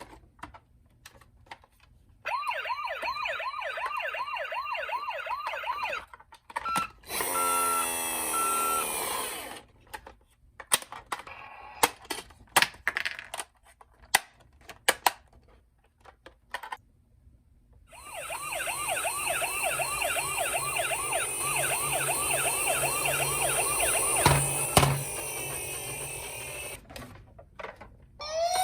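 Electronic sirens of toy emergency-vehicle minicars: a fast up-and-down warble, then short beeps and a sweeping tone. A string of clicks and knocks follows in the middle, then the fast warble sounds again for several seconds and a rising wail starts at the very end.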